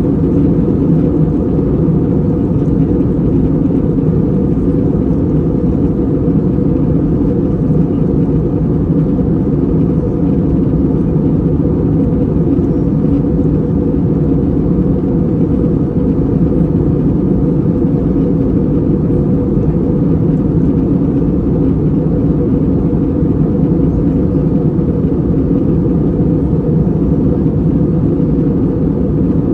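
Steady low drone of an Airbus A320 in flight, engine and airflow noise heard from inside the passenger cabin.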